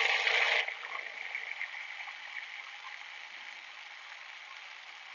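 Food processor motor running as it mixes egg yolks into a butter-and-sugar shortbread dough, switched off about half a second in. A faint hiss fades away after it stops.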